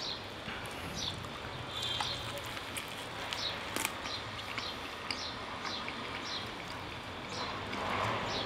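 A small bird chirping over and over in short high notes, about two a second, over a low steady hum and the faint clicks of a man chewing smoked lamb ribs.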